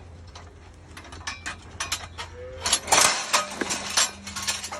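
Steel cattle headlocks being unlocked: a run of metal clicks, clanks and rattles, thickening into loud clanging about three seconds in. The release mechanism is stiff and hard to move.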